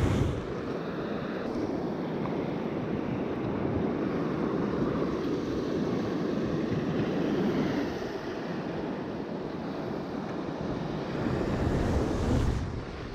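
Wind rushing over the microphone, with surf breaking on the shore beneath it.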